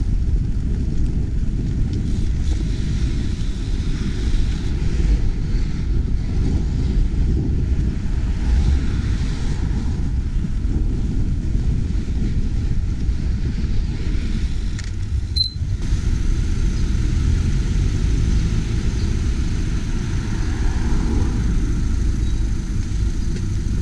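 Steady low rumble of wind on the microphone and street traffic while riding a bicycle through a city, with a single sharp click about two-thirds of the way through.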